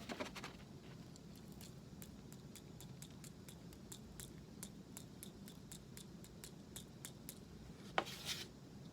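Hand-twisted spice grinder grinding a peppercorn, sea salt and coffee blend: a run of light ratcheting clicks, about four a second, then a sharper click and a brief rustle near the end.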